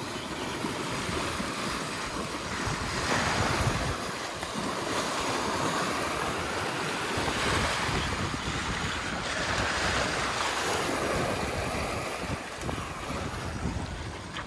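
Water rushing and splashing along the hull of a Beneteau First 36.7 sailing yacht surfing downwind at speed, mixed with wind buffeting the microphone. The rush swells and eases, loudest a few seconds in and again through the middle.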